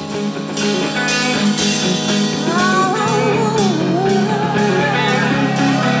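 Live band music: steady sustained bass notes under regular hi-hat strokes, with a voice singing a wavering melody that comes in about two and a half seconds in.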